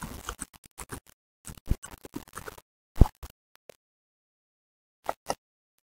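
Computer keyboard keys clicking as text is typed: a quick run of keystrokes for about two and a half seconds, the loudest strikes around three seconds in, then two clicks close together near the end.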